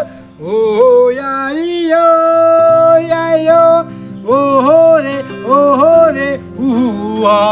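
A song: a male voice holds long, wavering notes over a plucked-string, guitar-like accompaniment.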